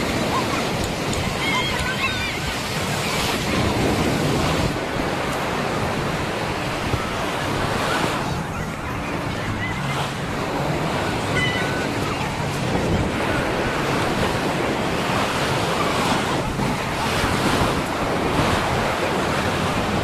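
Ocean surf breaking and washing up the beach: a steady rushing of waves that swells and eases.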